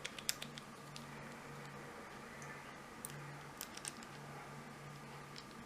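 A few faint, sharp metallic clicks from a lock pick and tension wrench working in a padlock's keyway, several at the start and a few more in the middle, over a faint steady low hum.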